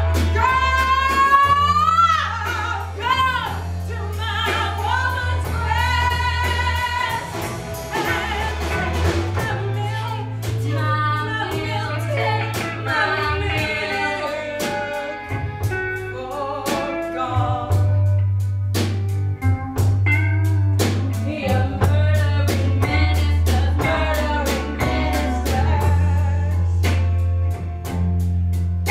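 Live band music: a woman singing in a blues-gospel style with wavering held notes, over sustained bass notes and a regular drum beat.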